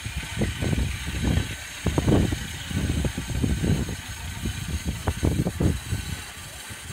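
Engine of a small narrow-gauge locomotive running as it moves out of a tunnel, with uneven low surges.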